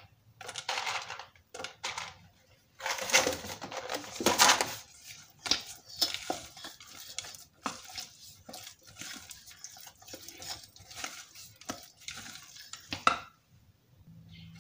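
Silicone spatula scraping and knocking against a stainless steel mixing bowl as raisins are folded into thick cake batter. The scrapes are irregular, loudest a few seconds in, with a sharper knock near the end.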